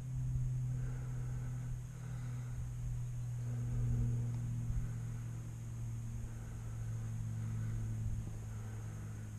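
A steady low hum with a fainter higher tone above it, over uneven rumbling of wind on the microphone.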